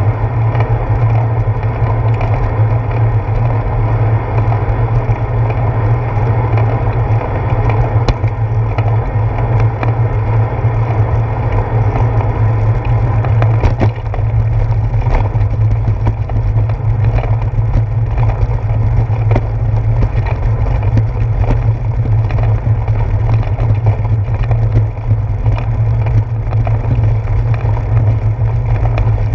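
Wind buffeting a handlebar-mounted camera on a moving bicycle, a steady low rumble, with the hiss of the tyres on the road. From about halfway on, the tyres roll over brick pavers and many small sharp knocks and rattles join in.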